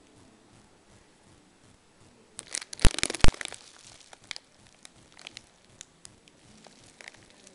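Plastic wrapping and sheeting crinkling as a shrink-wrapped needle bearing is picked up: a loud crackly burst about two and a half seconds in with two sharp knocks in it, then scattered faint crackles.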